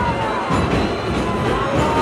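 Music with a melody line sliding in pitch over a full, dense backing.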